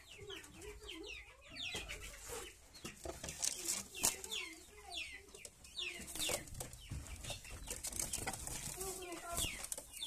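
Young pigeons peeping in short, high chirps that fall in pitch, repeated over and over, with lower wavering pigeon coos. Scuffling and wing flaps come in between.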